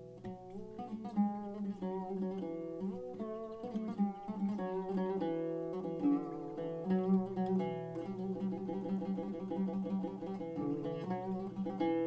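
Instrumental music on a plucked string instrument playing a melody of many quick notes over steady lower tones.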